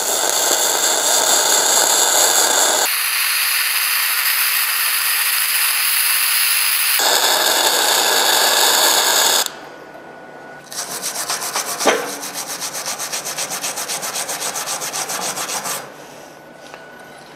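Flux-cored arc of a MIG-200GP welder running gasless, crackling and sputtering as it lays a fillet bead on 8 mm steel. The arc stops about nine and a half seconds in, strikes again a second later with a faster, even crackle for about five seconds, then stops.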